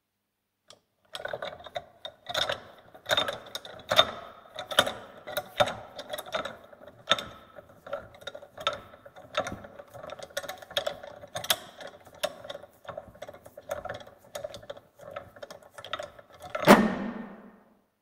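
Bench vise being worked hard by its handle: a run of metallic clicks and squeaks from the screw and sliding jaw, with strong strokes about once a second. Near the end comes one loud metal clunk that rings briefly.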